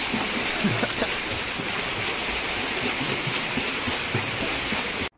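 Swimmers' strokes churning the water of a swimming pool: a steady hiss of splashing that cuts off abruptly near the end.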